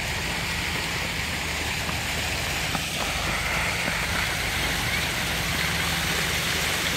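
Steady rushing noise with a low rumble underneath, holding even throughout.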